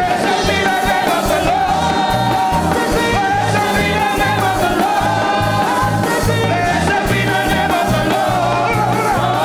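Live gospel song: a man sings the lead melody into a microphone over a band playing a steady beat.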